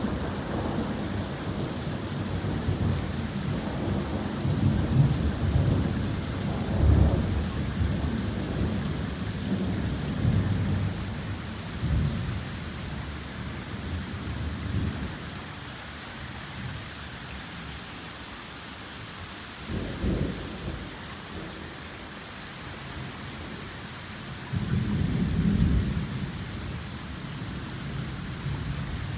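Torrential rain pouring steadily in a thunderstorm, with thunder rumbling through the first half and two more low peals, a short one about two-thirds of the way in and a longer one near the end.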